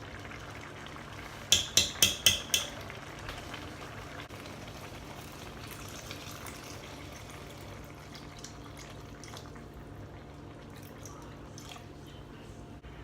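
A pot of tomato sauce with pancetta and vegetables cooking on the stove, with a steady low sizzle and bubbling. About a second and a half in there are five quick sharp taps, the loudest sounds, followed by a few faint ticks.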